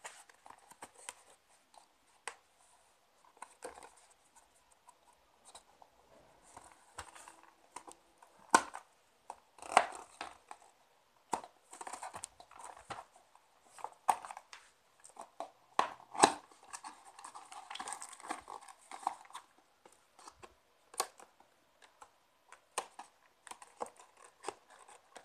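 Cardboard box and clear plastic packaging being handled and pried at by hand: irregular rustling, crinkling and scraping with scattered sharp clicks and taps.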